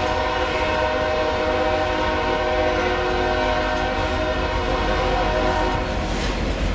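A locomotive air horn sounds one long steady chord that fades out near the end, over the low rumble of a double-stack container train rolling past.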